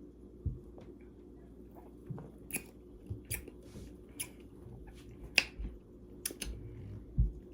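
A person drinking carbonated soda: irregular swallows and gulps with wet mouth clicks and lip smacks as she tastes it.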